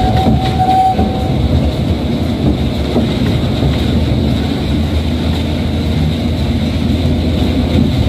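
Diesel engine and wheels of the Botchan Ressha replica steam tram, a steady low rumble as it runs along street track. A steady high tone stops about a second in.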